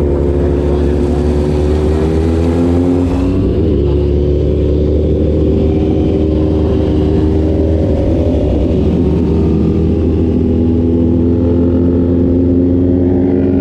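Motorcycle engine running under way, its pitch rising and falling slowly as the revs change, with a shift in the sound about three seconds in.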